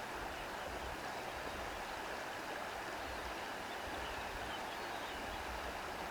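Steady rushing of flowing water, like a stream, with no music.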